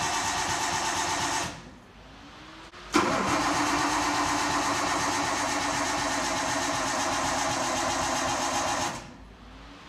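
Nissan RB25 inline-six in an S14 running at a steady high idle around its first start after a cylinder-head rebuild. The engine sound drops away about a second and a half in, comes back suddenly at three seconds and runs steadily until it fades near the end.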